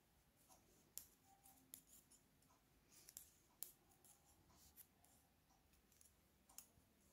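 Faint, irregular ticks of plastic knitting needles touching as stitches are purled and slipped, about one or two a second, against near silence.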